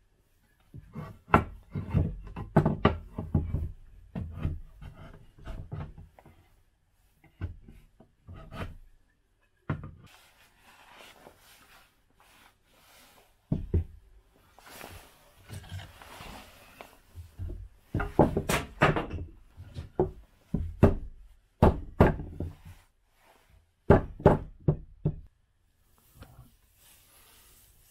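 Irregular wooden knocks and thumps as timber frame pieces are handled and their mortise-and-tenon joints pushed together, in clusters, with a couple of stretches of softer rubbing noise between them.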